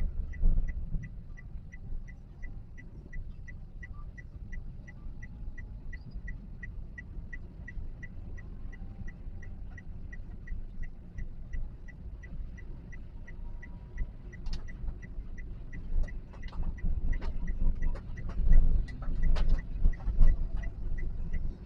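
A car's turn-signal indicator ticking steadily in the cabin, about two ticks a second, over the low rumble of the Toyota Calya on the road. From about two-thirds through, scattered sharp taps and knocks come in.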